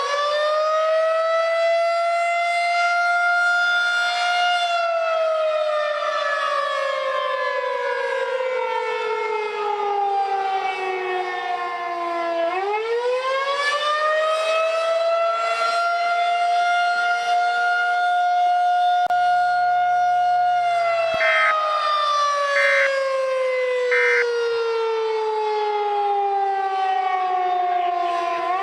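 Outdoor tornado warning siren wailing for a test tornado warning. Its pitch rises, holds for a few seconds, then slides slowly down; the cycle repeats about every twelve seconds, about twice and a half in all. Three short beeps sound during the second fall.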